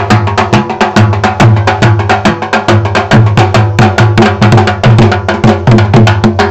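Dhol drums beaten with sticks in a fast, driving dance rhythm: dense sharp strikes over deep bass booms that recur about twice a second.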